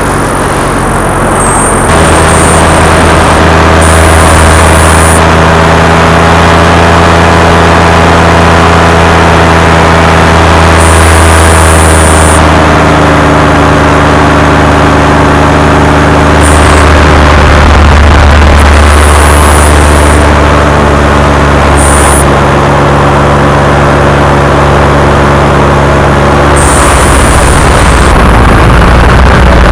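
A paramotor's engine and propeller run steadily at flying power, heard loud over a rush of wind, with the pitch shifting slightly a few times.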